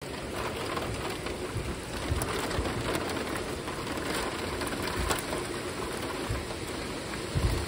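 Ice rain falling steadily on roofs and trees, a constant patter dotted with many small sharp ticks of ice pellets striking surfaces.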